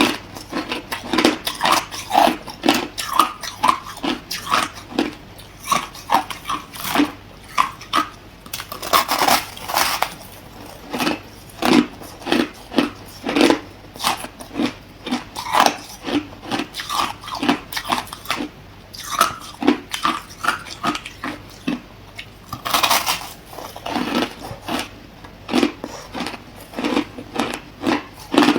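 A person biting and chewing hard clear ice: a fast run of crunches, about two or three a second. Twice, a longer, louder cracking crunch comes as a bigger piece breaks.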